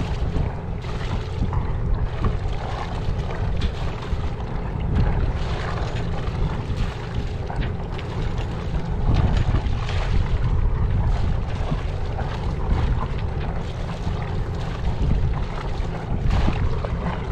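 Wind noise on the microphone, with water washing along the hull of a sailboat under way.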